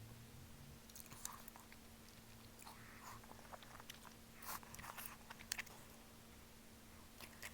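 Eating sounds of malatang: quiet chewing and biting with scattered small wet clicks and smacks, the sharpest click about five and a half seconds in, over a faint steady hum.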